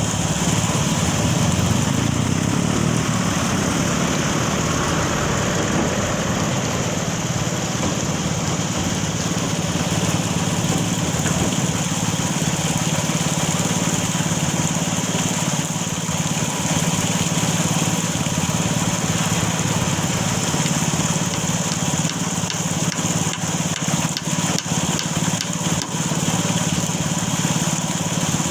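Heavy machinery engine running steadily, with a constant hiss over it.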